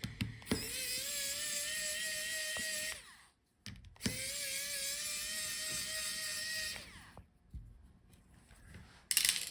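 Electric screwdriver whining as it backs out laptop hinge screws, in two runs of a few seconds each with a pause between. A short rattle or clatter comes near the end.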